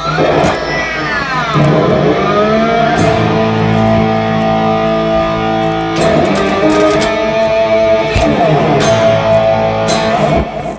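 EVH Wolfgang Standard electric guitar played through an amp, jamming: held chords ring out, with notes sliding and bending in pitch. The playing stops just before the end.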